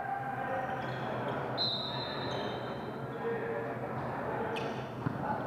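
Volleyball game in a large gym: many voices chattering and echoing around the hall, with short high squeaks of shoes on the hardwood floor and a sharp smack of the ball being hit near the end.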